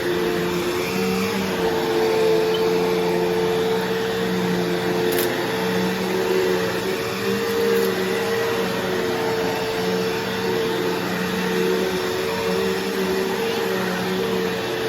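Bissell CleanView Revolution Deluxe upright vacuum running steadily, a continuous motor whine over a lower hum that wavers slightly in pitch as it is worked. It sounds healthy, with a bit of whine.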